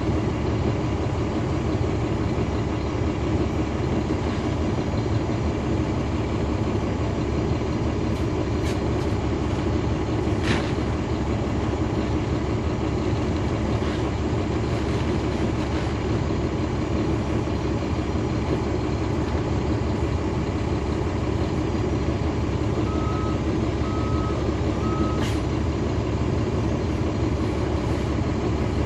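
Caterpillar C13 ACERT inline-six diesel of a NABI 40-SFW transit bus running steadily, heard from inside the cabin. Three short electronic beeps sound about three-quarters of the way through.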